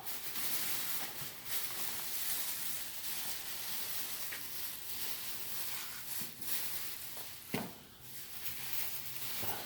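Packaging rustling and crinkling as the model airplane's fuselage is unwrapped and handled, with a few sharp clicks.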